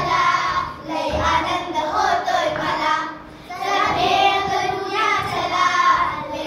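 A group of children singing a song together in unison, in phrases, with a short break about halfway through.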